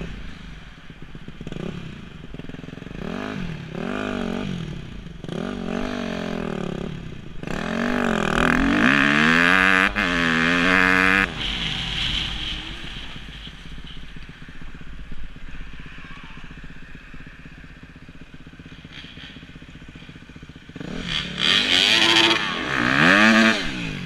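Honda CRF250R's single-cylinder four-stroke dirt bike engine revving up and down as it is ridden, pitch climbing and falling with each throttle opening. A loud high-rev stretch drops off sharply partway through, followed by a quieter run off the throttle, then hard revving again near the end.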